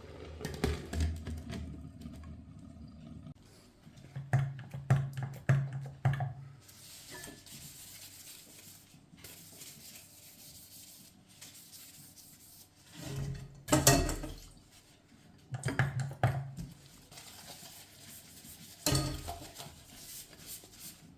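Intermittent knocks and clatter of pots, pans and utensils being handled, with quieter gaps between.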